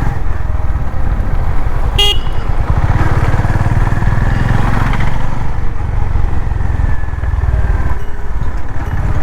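Honda CB350RS's single-cylinder engine and exhaust running steadily while riding, with a short vehicle horn toot about two seconds in.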